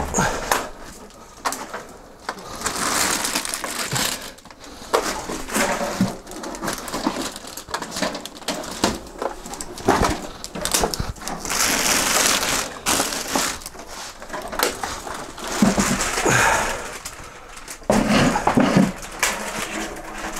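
Plastic bag crinkling and foam packing creaking in irregular rustling bursts as a heavy network switch chassis is lifted out of its packaging.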